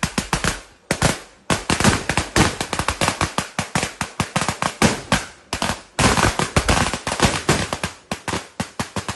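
Firecrackers going off in a rapid run of sharp bangs, many a second, with a couple of brief lulls.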